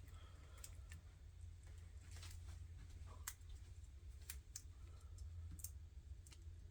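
Faint, scattered clicks and light crinkling as hands press and wrap a Talon adhesive grip onto a Glock 21 polymer pistol frame, over a low steady hum.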